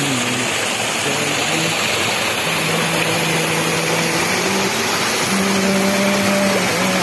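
Small forest waterfall pouring over a rock ledge into a pool, a steady rushing splash. Under it, a low held hum steps between a few pitches every second or two.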